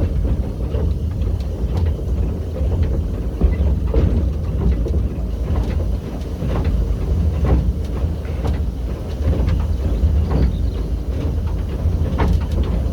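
Andrew Barclay 0-4-0 saddle tank steam locomotive Lady Nan under way, heard from inside its cab: a steady low rumble with scattered, irregular metallic knocks and clanks.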